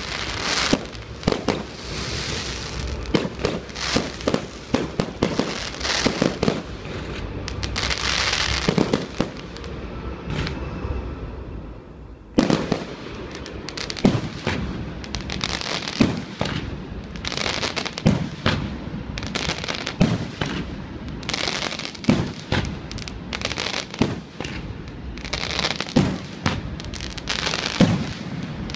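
Fireworks display: aerial shells and rockets going off in a string of sharp bangs, with hissing and crackling from bursts and fountains between them. There is a short lull about ten seconds in, and a loud bang restarts the run about twelve seconds in.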